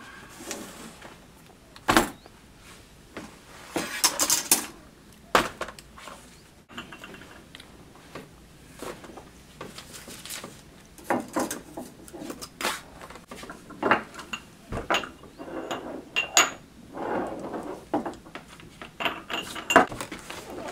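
Objects being handled on a wooden floor: binders and books set down and shifted, paper rustling, and small metal dishes clinking, in a string of irregular knocks and clinks.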